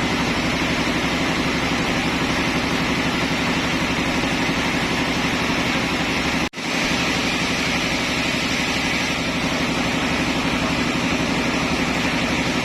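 Sawmill machinery engine running steadily with a fast, even low pulse. The sound drops out for an instant about halfway through.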